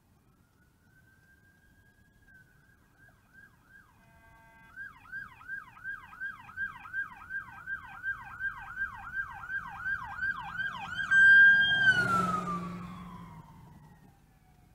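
Emergency vehicle siren coming closer: first a held wail, then a fast yelp sweeping about three times a second and growing louder. About eleven seconds in it switches to a held high tone, which is loudest briefly amid a rush of vehicle noise, then slides down in pitch and fades.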